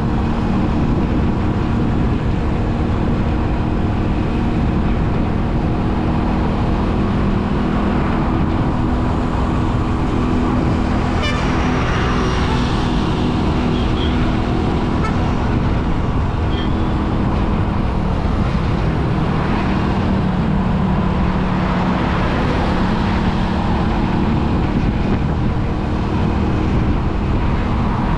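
A vehicle's engine and road noise run steadily while travelling along a busy road, with traffic around and a few short horn toots in the middle.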